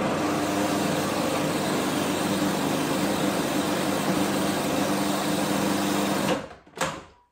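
Electric food processor motor running steadily, blending thick taramasalata as water is worked in to lighten it; it switches off about six seconds in.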